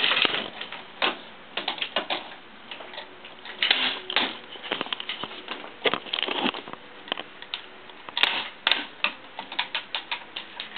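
Irregular clicking and clacking of plastic link rings and hanging toys knocking against a crib rail as a toddler handles them, in quick uneven clusters.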